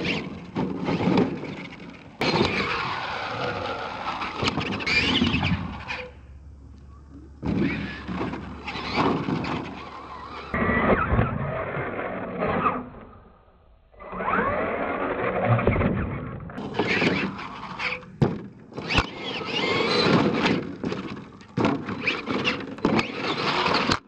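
Radio-controlled monster trucks driving hard on dirt, their electric motors and gears whining as the pitch rises and falls with the throttle. Sharp thuds from landings off jumps are heard several times.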